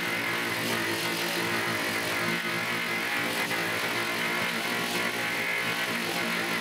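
Corded electric sander running steadily against the steel side panel of a 1978 Volkswagen Bus, stripping old primer and paint down toward bare metal.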